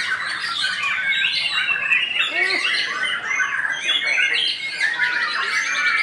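White-rumped shama (murai batu) singing: a fast, unbroken song of varied whistled and harsh chattering notes, rising and falling quickly.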